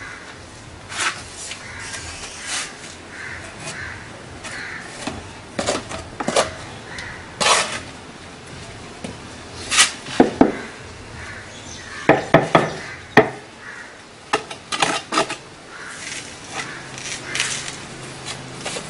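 Steel trowel clinking and scraping as cement mortar is scooped and packed around a ceramic floor tile, with irregular clusters of sharp taps as the tile is knocked down into its mortar bed with the trowel's handle.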